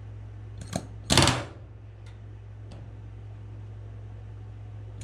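Pneumatic rivet gun driving a solid aluminium rivet through the stabilizer skin into a stringer against a bucking bar. It gives a short tap just under a second in, then a half-second burst of rapid blows, and a second burst starts at the very end. The bucking is meant to slam the skin down tight against the stringer and close a small gap between them. A low steady hum runs beneath.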